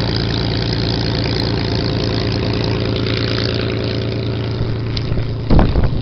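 Supermarine Spitfire's V12 piston aero engine running steadily at low power with an even, deep beat. About five and a half seconds in, wind starts buffeting the microphone.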